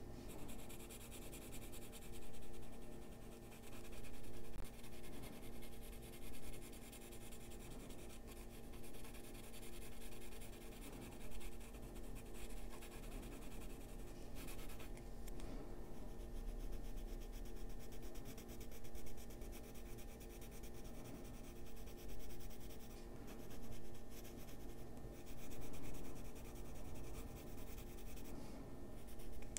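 Colored pencil shading on paper: soft scratchy strokes that swell and fade every second or two.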